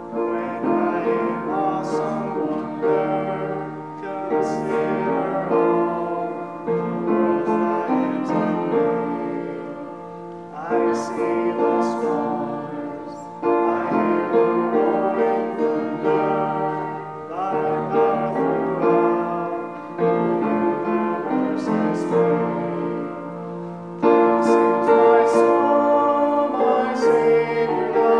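Upright piano playing a slow accompaniment, with a man singing a solo over it.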